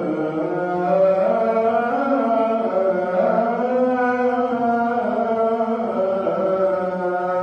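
A man's voice chanting the adhan, the Islamic call to prayer, in the Tunisian melodic modes: one long melismatic phrase, the voice holding notes and gliding between them. The phrase ends near the end, its echo fading out.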